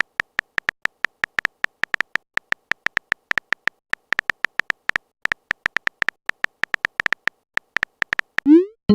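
Rapid, uneven run of short electronic beeps all on one pitch, about five or six a second, the kind of typing sound effect used for messages being typed out in chat-story videos. Near the end a short rising chirp sounds.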